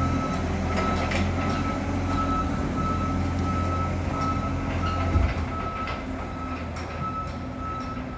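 Telehandler's diesel engine running with a backup alarm beeping at a steady pace. A little after five seconds the engine drone drops away with a brief clunk, while the beeping carries on.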